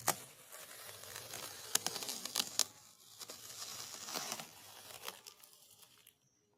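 Packaging being torn open and crinkled by hand: a crackly tearing and rustling with a few sharp clicks, stopping near the end.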